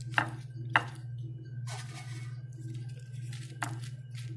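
Fried eggplant slices being laid by hand into a ceramic baking dish: three light, sharp clicks and a soft rustle, over a steady low hum.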